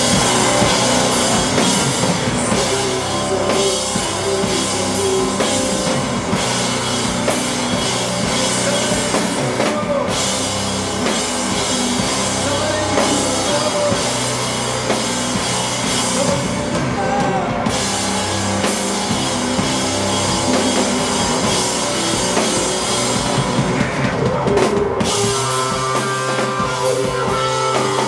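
Live rock band playing an instrumental passage: full drum kit, bass and electric guitar.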